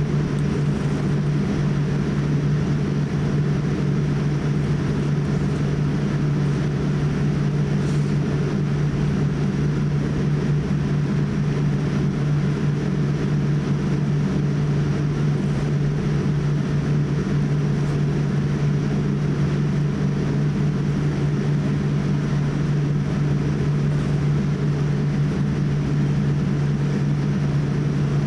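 Steady cabin noise inside a Boeing 787-8 as it taxis: a constant low hum with an even rush above it.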